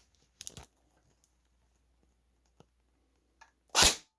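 A few faint clicks of handling, then near the end one loud, brief single shot from an A&K Masada airsoft electric gun fired through a chronograph.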